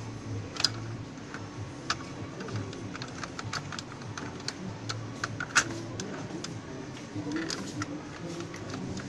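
Irregular light clicks and taps, roughly two to four a second, with one sharper click about five and a half seconds in.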